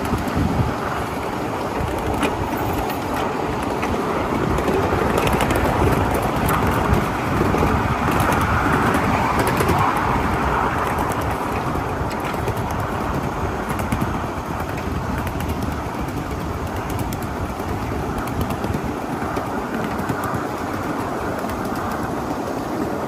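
A 1/8-scale ridable live steam train running along its track: a steady rumble and clatter of the wheels on the rails, with scattered light clicks.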